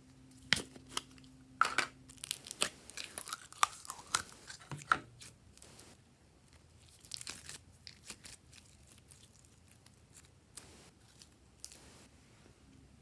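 Glossy slime squished and stretched by hand, giving a run of sharp clicks and crackles as air pockets pop, thick at first and thinning out after about five seconds.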